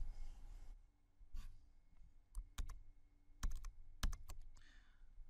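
Computer keyboard key presses and mouse clicks: about eight short, sharp clicks scattered through, some in quick pairs.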